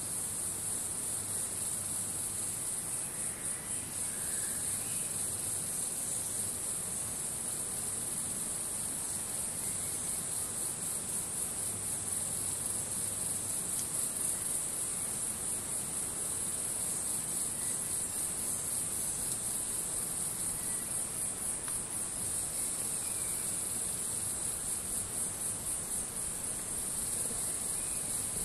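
Steady, high-pitched trilling of insects in chorus, unbroken throughout, with a fast pulsing to it in places.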